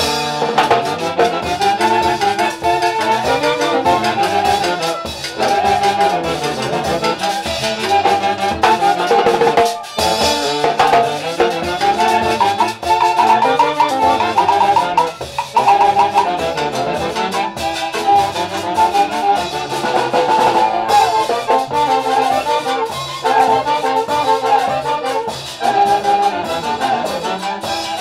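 Live festival orchestra playing music, with brass carrying the melody over a steady drum beat.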